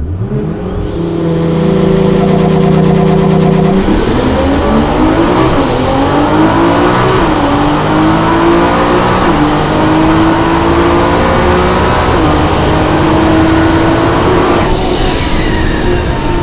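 Nissan GT-R's twin-turbo engine heard from the cockpit, held at steady revs on the launch with a rising turbo whine. About four seconds in it launches and accelerates hard through several upshifts, the pitch climbing and dropping back at each shift. Near the end the throttle is lifted, the revs fall and the turbos flutter.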